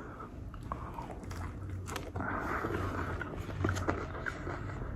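A person chewing a mouthful of burger, soft wet clicks of the mouth coming every so often.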